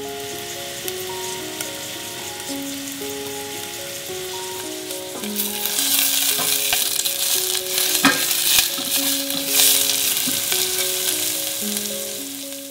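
Sliced onions sizzling in hot olive oil in a stainless steel pot while being stirred with a spatula. The sizzle grows louder about halfway through, with a couple of sharp knocks a little later.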